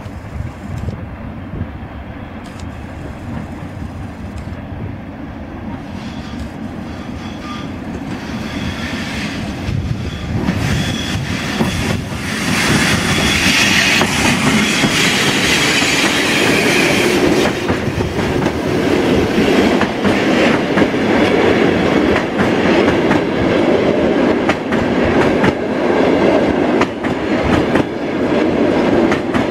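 Passenger train hauled by a ChS2 electric locomotive, coming closer: the sound grows louder over about twelve seconds, then settles into a steady loud rumble with the clickety-clack of wheels over rail joints.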